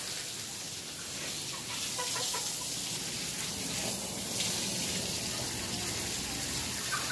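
Chickens clucking softly, a few short calls about two seconds in, over a steady hiss.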